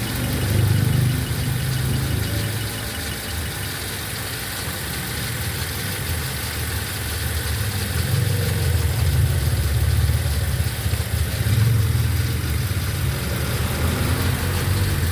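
Toyota Avanza (third generation) four-cylinder engine idling with a steady low rumble, growing a little louder about halfway through; the car is being checked for a misfire.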